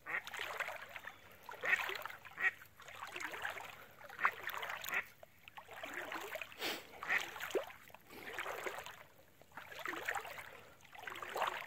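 Water splashing in repeated bursts, about one a second, as a dog wades through shallow, weed-covered water.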